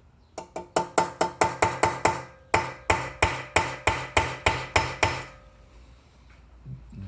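Hammer striking metal in a quick series of about eighteen ringing blows, roughly three a second, with a short pause near the middle. The blows are trying to drive the dislodged exhaust valve guide back into a Honda GCV160 cylinder head, and the guide is not moving.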